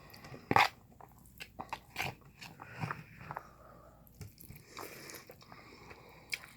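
Close-up chewing of instant noodles: irregular wet mouth clicks and smacks, with a louder smack about half a second in.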